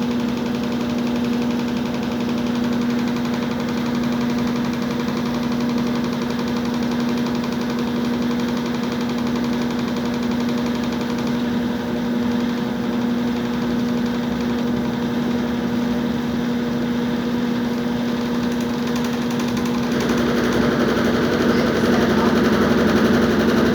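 Brastemp washing machine in its spin cycle, running with a steady pitched hum and an abnormal mechanical noise, the fault it is being shown for. The sound grows louder and rougher about twenty seconds in.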